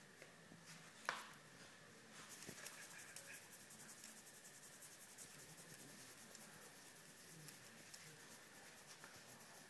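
Faint, fast scratchy rubbing of hands scratching a Boston Terrier's short fur, starting about two seconds in, after a single sharp click about a second in.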